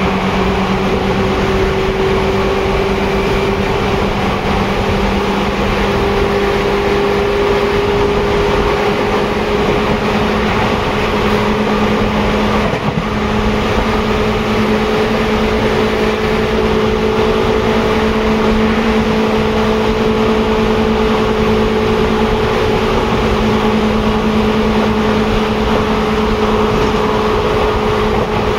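Seibu 2000-series electric train running on the line, with a steady rumble of wheels on rail under a motor and gear whine that rises slowly in pitch as the train gathers speed.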